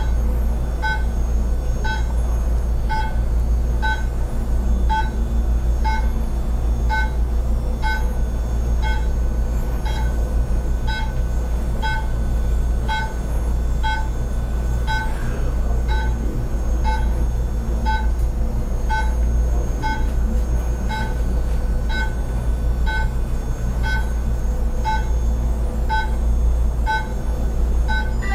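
Class 4 therapy laser beeping steadily, one short beep about every second, the signal that the laser is emitting, over a steady low hum.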